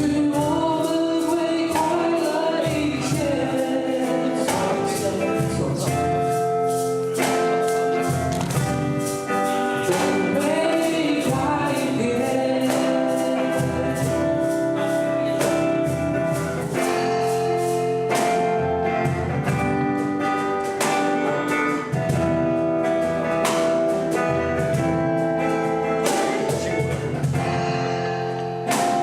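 Live band performance of a pop song: singing over strummed acoustic guitars with a steady percussion beat.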